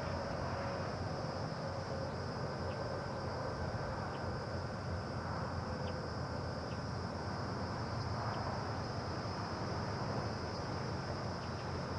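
Outdoor ambience: a steady high-pitched insect chorus over a constant low rumble, with a few faint ticks scattered through.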